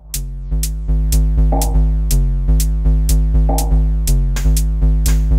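Live techno from a drum machine and synthesizers: a steady kick drum at about two beats a second under a pulsing synth bassline that changes pitch. The groove drops in about half a second in, after a brief chopped-up break.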